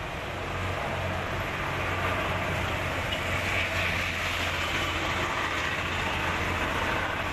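Steady traffic noise with a low engine hum, getting a little louder about a second in.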